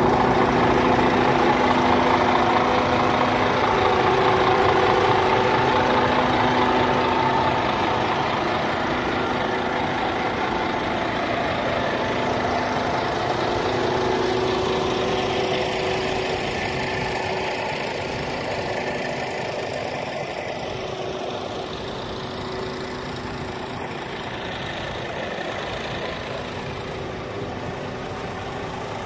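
Scania G440 truck's 13-litre straight-six diesel engine idling steadily, growing a little fainter over the second half.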